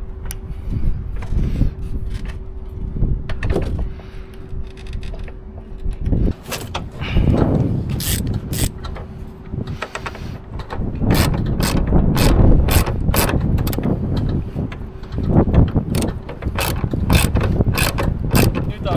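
Hand-tool work on metal truck parts during reassembly: irregular knocks and clanks, then rapid runs of sharp clicks like a ratchet being worked from about seven seconds in. A faint steady hum runs underneath for much of the time.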